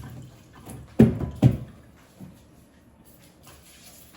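Two sharp knocks about half a second apart, then quiet.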